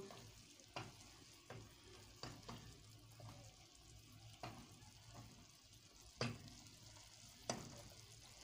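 Wooden spoon stirring chicken pieces in sauce in a nonstick pot, knocking and scraping against the pot now and then, over a faint sizzle. The two loudest knocks come near the end.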